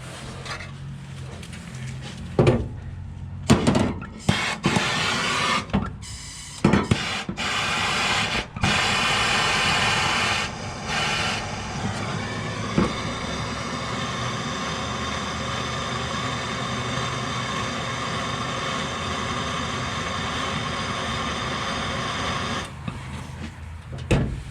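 Handheld trigger-ignition gas torch: a few sharp clicks, then a steady flame hiss that stops abruptly near the end. The flame is heating a solder joint on a brass radiator to reflow the solder.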